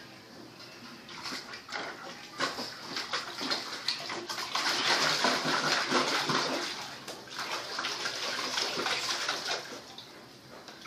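Water splashing and sloshing in a basin as a young St. Bernard mix dog plays in it, starting about a second in, loudest in the middle and dying down near the end.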